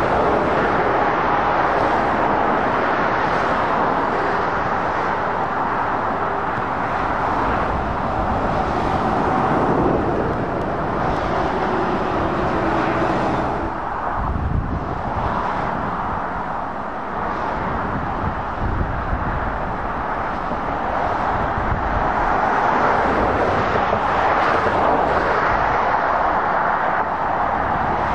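Road traffic of heavy lorries and cars passing on a dual carriageway: a steady rush of tyre and engine noise that eases slightly about halfway through.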